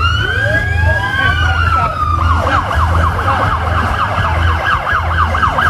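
Police vehicle sirens. A wail rises and holds near its top pitch, then slowly sags, with another siren's sweeps overlapping at the start. About two seconds in, it switches to a fast yelp of about four sweeps a second.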